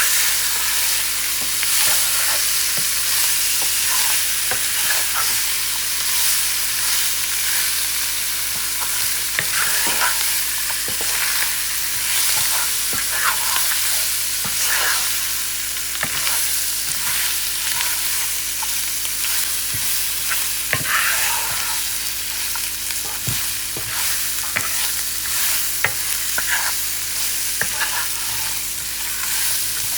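Chicken feet frying in hot oil with burnt curry spices in a pot, sizzling steadily while being stirred, with scattered scrapes and knocks of the spoon against the pot.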